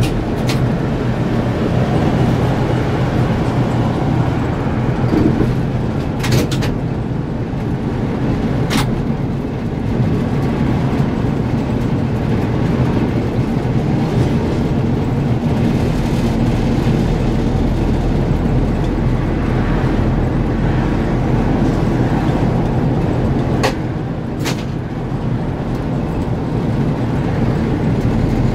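A ZiU-682G trolleybus under way, heard from on board: steady running and road noise with a low hum. A few short sharp clicks or knocks come several seconds apart.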